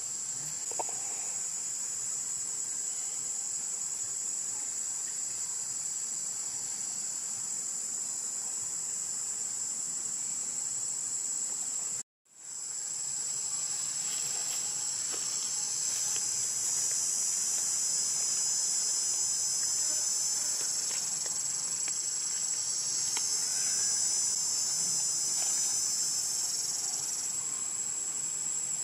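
Chorus of forest insects: a steady, high-pitched shrill. It cuts out for a moment about twelve seconds in and returns a little fuller, wavering in the last few seconds.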